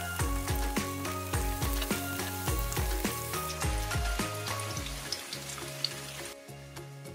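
Butternut squash wedges sizzling as they fry in hot olive oil in a stainless steel pan, a steady hiss that drops away near the end, under background music with a regular beat.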